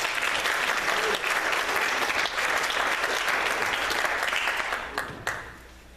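Congregation applauding, a dense patter of many hands clapping that thins out about five seconds in, with a few last single claps.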